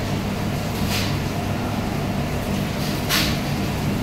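Steady low hum and rush of commercial kitchen equipment, with two brief hisses, about a second in and just after three seconds.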